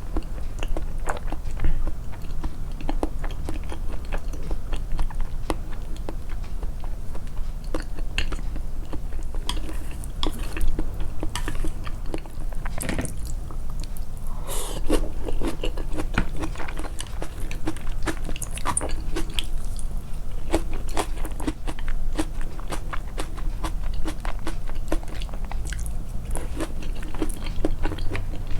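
A person chewing food close to the microphone, with many small crunches and wet mouth clicks in an uneven, continuous stream; the chewing sounds are boosted in editing.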